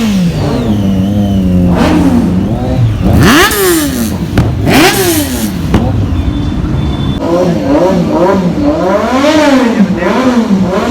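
Kawasaki Ninja H2 sportbike's supercharged inline-four revved by throttle blips, loud. The pitch rises and falls with each blip: a couple of big revs with idle between, then a quick run of about two blips a second near the end.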